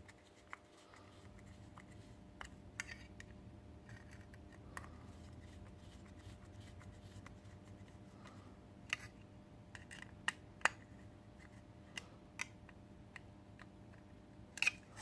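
Small screwdriver tightening a screw into plastic robot-kit parts: faint, irregular clicks and small scrapes, with a few sharper clicks in the second half.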